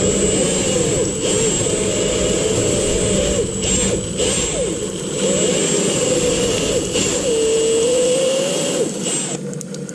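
A power drill spinning a scrub-brush attachment inside a garbage disposal, with a steady high motor whine over the brush scrubbing the walls and tap water running. The drill stops about nine seconds in.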